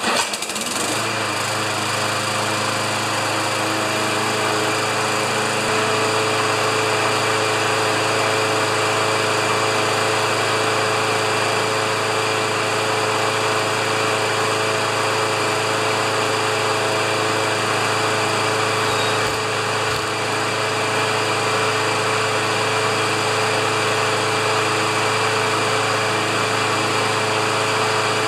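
Briggs & Stratton flathead lawn mower engine starting and picking up speed within a second, then running at a steady governed speed. This is the next-day start test after a tune-up (new spark plug, air filter, oil) on a mower that would not restart the day before, and the engine is running smoothly.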